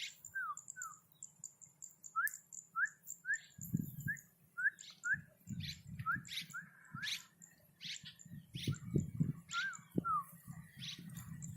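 A bird calling in a long series of short, falling whistled notes, about one to two a second, mixed with sharper higher chirps, over intermittent low rumbling.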